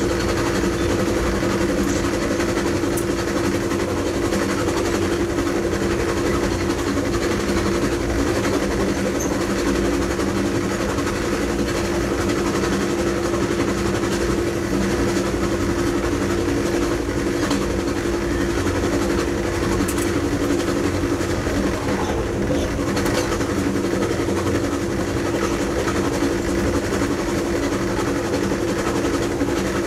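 A GE P42DC Genesis diesel locomotive running at speed, heard from inside its cab: a constant steady hum and rumble of the engine and wheels on the rails, with a few faint clicks.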